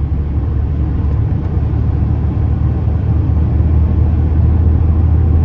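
Heavy diesel truck accelerating under a heavy load: a steady low engine drone with road rumble, growing slightly louder as it gains speed.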